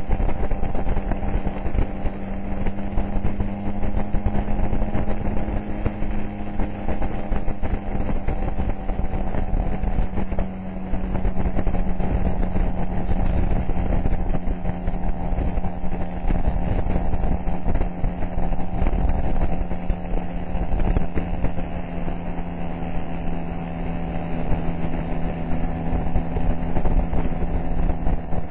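Motor scooter engine running at a steady cruising speed on the open road, its drone holding a nearly level pitch, with wind rumbling on the microphone.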